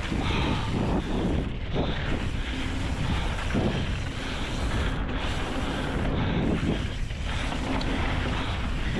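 Wind buffeting the microphone of a mountain bike descending a dirt flow trail at speed, over the steady rush of knobby tyres on dirt, with occasional knocks and rattles from the bike over bumps.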